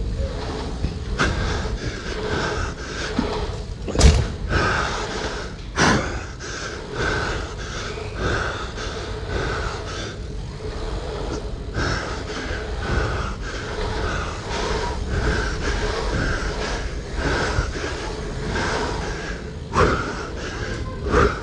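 Heavy breathing in an even rhythm over a steady rolling rumble, broken by a few sharp knocks, the loudest about four seconds in and two more near the end.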